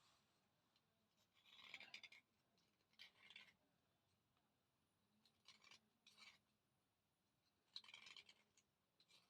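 Faint gritty scratching from a thick slate pencil, in about five short bursts.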